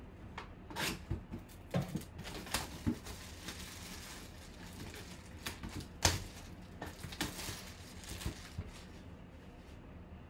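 Clear plastic shrink wrap being torn and crumpled off a cardboard box by hand, with scattered crinkles and taps and one sharp crack about six seconds in.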